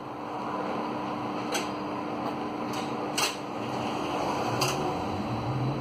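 Tram standing with a steady electrical hum and three sharp clicks; near the end its traction motors start a rising whine as it begins to pull away.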